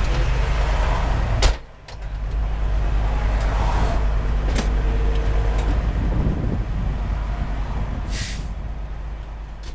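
A Pierce Velocity fire engine's 470 hp Detroit Series 60 diesel runs steadily at a standstill, with passing traffic. A cab door slams shut about a second and a half in, and a short hiss of released air comes near the end.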